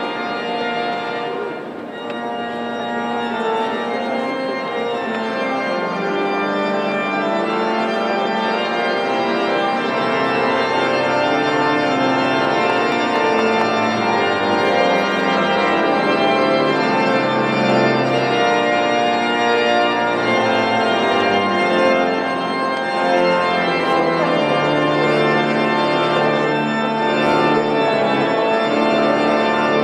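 Church pipe organ playing sustained full chords for the recessional at the end of mass.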